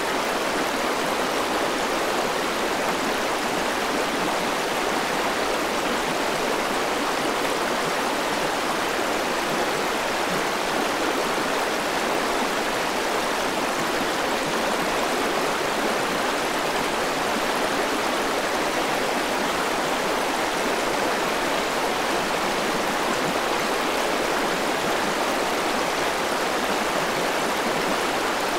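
Shallow mountain stream rushing steadily over rocks and gravel.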